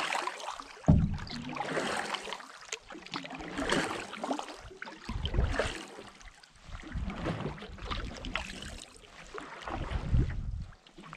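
Canoe paddle strokes: the wooden blade swishing and splashing through the water every second or two, with water dripping and lapping along the hull. There is a single knock about a second in, and low wind rumble on the microphone in the second half.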